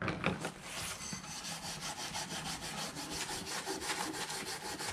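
A wiry scouring pad scrubbed back and forth on a weathered teak slat wet with teak cleaner, in fast even strokes of about five or six a second, working the old grime off the wood.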